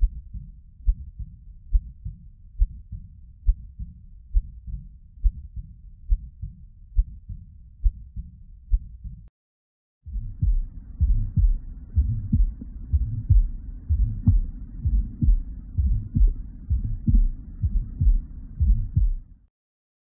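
Heartbeats recorded through a digital stethoscope. First comes a heart with aortic regurgitation and an ejection systolic murmur: low, steady beats a little faster than one a second. After a short break of about a second comes a heart with aortic stenosis: louder beats with a harsh blowing murmur between them.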